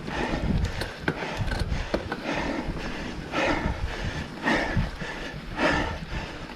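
A mountain-bike rider panting heavily, about one hard breath a second from about two seconds in, over a steady low rumble.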